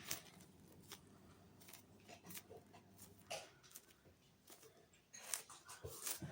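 Near silence, with a few faint scattered clicks and rustles of small objects being handled.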